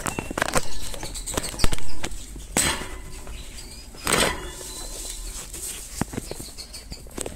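Irregular rattling, knocks and rustling from a wire bird cage being handled at close range, loudest a couple of seconds in and again about four seconds in.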